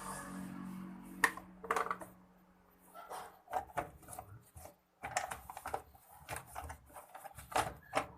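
Irregular knocks, clicks and rattles of hands working on a front-loading washing machine's casing as it is opened. There are two sharp clicks just over a second in, then a run of clatter through the second half.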